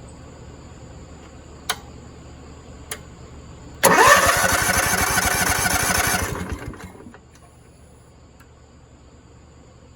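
Two sharp clicks, then the small engine of a propane floor buffer is cranked, catches and runs with rising pitch for about three seconds before dying away.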